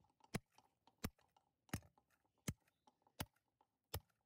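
A steel hammer striking a toy race car lying in grass: six sharp knocks at an even pace, about three every two seconds.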